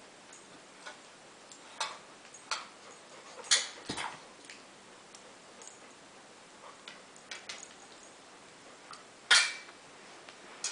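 A metal muffin tin knocking and clicking irregularly as a dog noses tennis balls out of its cups to get the treats hidden beneath. The loudest knocks come about three and a half seconds in and again near the end.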